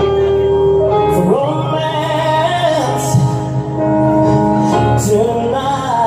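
A slow song with a singer holding long, wavering notes over a steady bass line, played loud.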